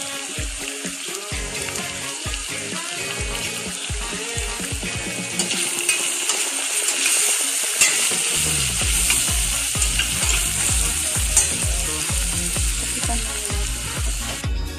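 Onions and carrots frying in a stainless steel pot, sizzling steadily; the sizzle grows brighter about five or six seconds in. Background music with a steady beat plays along.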